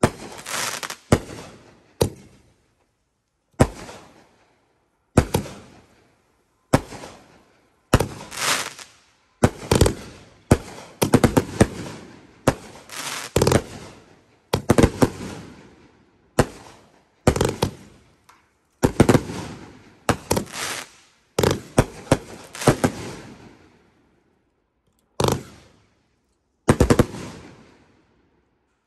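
Consumer aerial fireworks bursting overhead: an irregular run of sharp bangs, some in quick clusters, each trailing off. There is a brief lull about three-quarters of the way through before the bangs resume.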